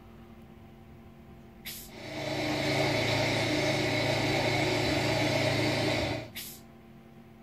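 Played-back engine-like machine noise from a model railway's sound system: it starts with a click a little under two seconds in, swells over about half a second, runs steady for about four seconds, then stops with a click.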